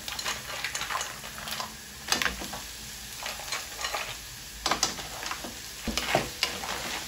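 Mussel shells tumbling into a hot frying pan of onion and peppers over a steady sizzle, with a few sharp clacks of shell against shell and pan. Near the end a wooden spatula stirs them.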